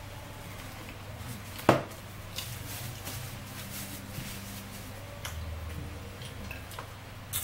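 Tabletop mealtime handling noises: a single sharp knock just under two seconds in, the loudest sound, then light crinkling and small clicks as a wrapper is handled, over a low steady hum.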